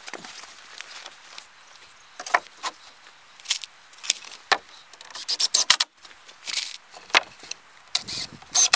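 Sawn wooden roof boards scraping and knocking as they are handled and set in place, in short irregular strokes. Near the end a cordless drill runs briefly, driving into the boards.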